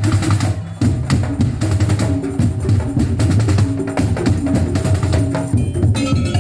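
Madurese daul (tongtong) percussion music: rapid wooden clacking of slit-drum strikes over deep drum beats, with a melody line that grows more prominent near the end.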